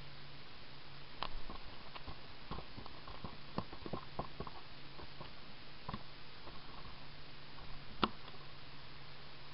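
Sea water lapping and splashing against a plastic sit-on-top kayak and the dangling legs, heard as a steady hiss with irregular small taps and knocks; one sharper knock about eight seconds in.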